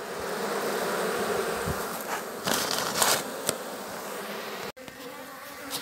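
Many honey bees buzzing in a steady swarm around an open hive box worked without smoke, with a few short handling rustles two to three seconds in. The sound cuts out for an instant near the end, then the buzzing carries on.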